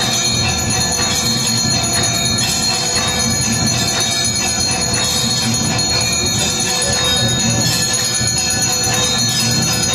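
Temple bells ringing continuously during an aarti: a dense, steady metallic clangour of rapid, repeated strikes.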